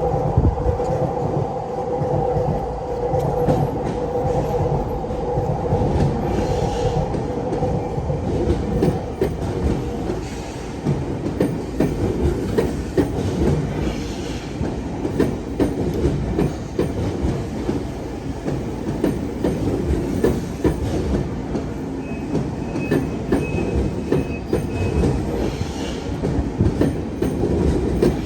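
Tokyu Meguro Line electric commuter train passing close by at speed, its wheels clicking rapidly over the rail joints. A steady hum fades out about eight seconds in, and a brief high squeal comes about two-thirds of the way through.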